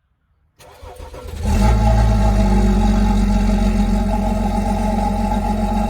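BMW X5 35d's twin-turbo inline-six diesel cold-starting at 26 °F: it cranks briefly, catches about a second and a half in, and settles into a steady idle. The engine is deleted and tuned, and breathes through a stock muffler.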